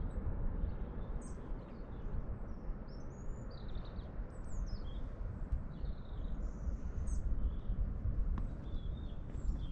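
Wind buffeting the microphone with an uneven low rumble, while small birds chirp in many short, high calls.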